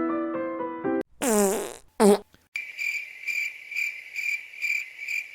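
Electric piano music cuts off about a second in. A fart sound follows: one drawn-out blat with a bending pitch, then a short, louder one. Then crickets chirp about twice a second.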